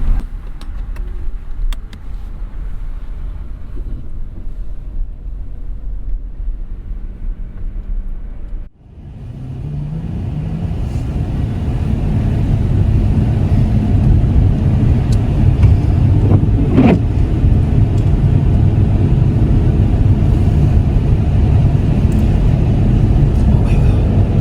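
A car driving on the highway, heard from inside the cabin: steady engine and tyre rumble. It drops out suddenly for a moment about nine seconds in, then comes back louder and stays steady.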